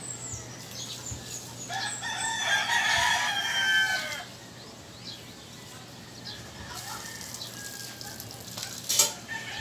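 A rooster crows once, a long call of about two and a half seconds, with short bird chirps around it. A sharp knock near the end.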